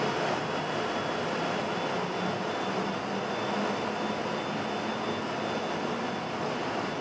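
Steady hum and rushing of a London Underground 1972 Stock train standing at the platform with its doors open, with a faint, steady high whine running through it.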